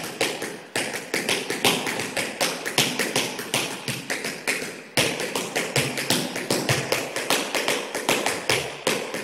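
Metal taps of tap shoes striking a studio floor in a rapid, steady rhythm of several taps a second: a dancer running a pattern of shuffles and shuffle ball changes at medium tempo.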